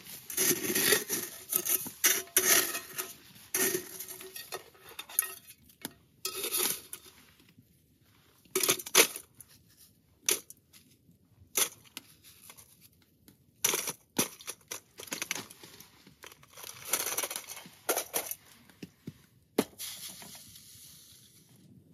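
Snow being scraped and scooped up with a metal pan, crunching and rasping in irregular bursts with short pauses.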